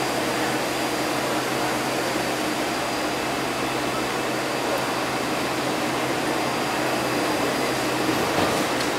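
Steady hum and hiss of a Taipei Metro C381 train standing at an underground platform, its air-conditioning and onboard equipment running. There is a light knock near the end.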